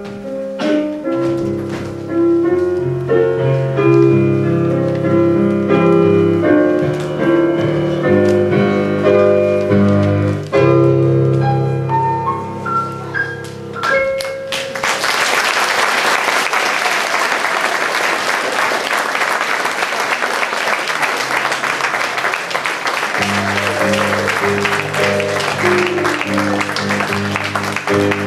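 Piano music, closing with a rising run of notes; about fifteen seconds in, audience applause takes over, and new music starts beneath the clapping near the end.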